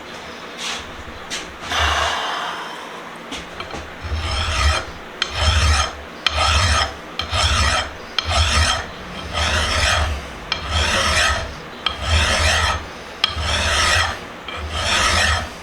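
Coarse hand file rasping across the metal of an anvil vise's horn, taking it down: about a dozen long push strokes at roughly one a second, starting about four seconds in after a few scattered scrapes and clicks.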